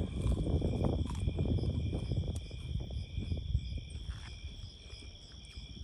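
Crickets chirping steadily, under close-up chewing and crunching of crispy fried catfish and fries. The chewing is loudest in the first few seconds, then eases off.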